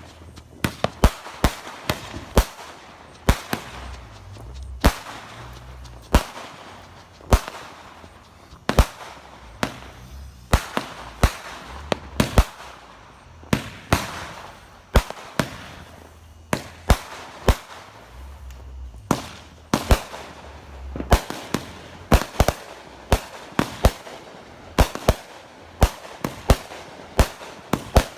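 Fireworks going off in quick succession: dozens of sharp bangs at an irregular pace, often several a second, with a low rumble under them at times.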